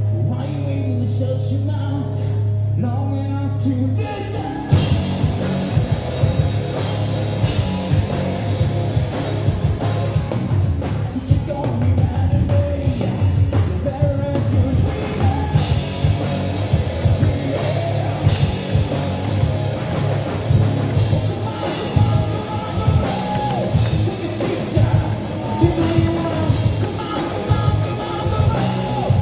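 Hard rock band playing live: a sustained low note holds for the first few seconds, then drums and electric guitars come in hard about four and a half seconds in, with a man singing over them.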